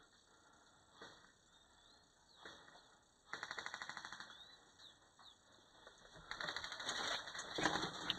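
Airsoft gun firing a rapid full-auto burst of about a second and a half, each shot a sharp snap, with a few lone clicks before it and a louder stretch of irregular clatter near the end.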